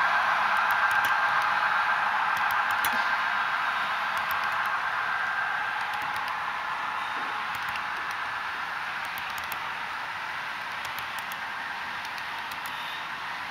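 HO scale model double-stack freight cars rolling along the track: a steady whirring hiss of wheels on rails with faint scattered clicks, slowly fading.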